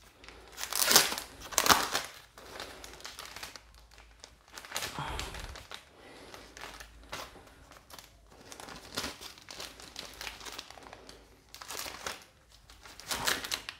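Clear plastic poly bag crinkling and rustling in irregular bursts as a comic book is handled in and out of it. The loudest crinkles come about a second in.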